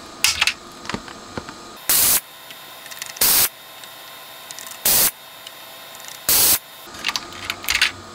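Vacuum desoldering gun sucking molten solder from the joints of the power supply's filter capacitors: four short hissing bursts of suction, about a second and a half apart, with a few light clicks of handling in between.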